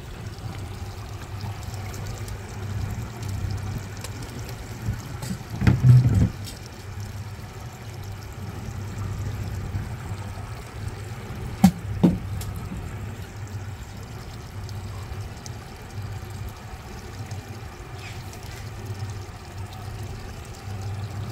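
Boat's outboard motor running at idle with a steady low hum, and water sloshing against the hull. A loud low thump comes about six seconds in, and two sharp knocks follow each other quickly just past halfway.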